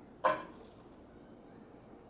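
A single short, sharp sound about a quarter second in, fading quickly.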